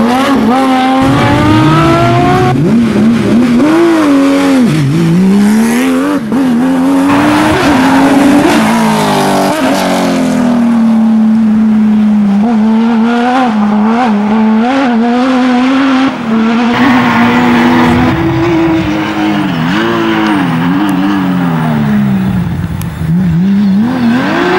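Porsche 911 rally cars' flat-six engines at full throttle, the pitch climbing and then dropping sharply again and again at gear changes and throttle lifts.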